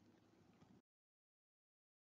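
Near silence: a faint trace of room hiss that cuts off under a second in, then complete digital silence.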